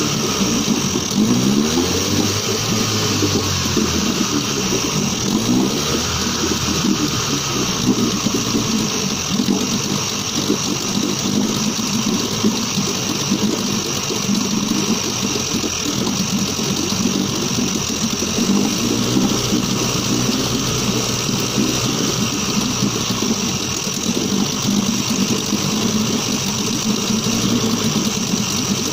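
1977 Suzuki DT9.9 two-stroke outboard motor running on fresh fuel lines, its engine speed rising and falling a few times as the throttle is worked.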